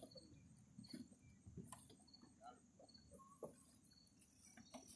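Near-silent woodland ambience: a faint short high chirp repeats about once a second among scattered light clicks, over a faint steady high tone.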